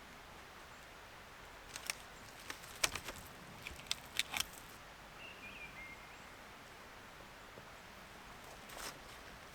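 A quick run of sharp clicks and cracks over a couple of seconds, then a faint short chirp-like tone, and one more crack near the end, over a quiet outdoor background.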